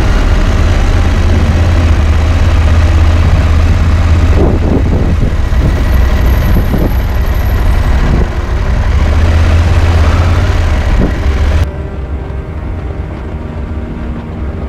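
A motorcycle on the move: steady, loud wind rush and engine noise on the microphone, heaviest in the low range. About three-quarters of the way in it cuts off abruptly and gives way to quieter music with held tones.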